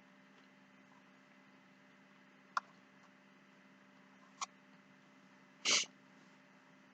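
Quiet eating noises: two short clicks about two seconds apart, then a brief, louder noisy sound a little over a second later, over a faint steady electrical hum.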